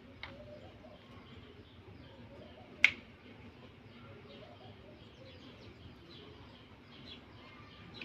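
A single sharp click about three seconds in, with a fainter click near the start, over a quiet background with faint, scattered bird chirps.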